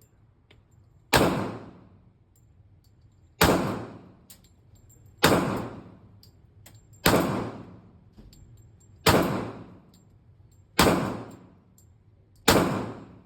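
Gunshots fired one at a time, seven in all, about two seconds apart, each cracking out and then fading in a ringing tail.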